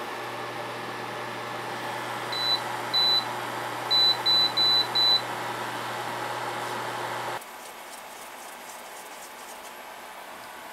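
Induction cooktop's touch controls beeping as they are pressed: six short high beeps, the last four in quick succession, over a steady hum that stops abruptly about seven seconds in.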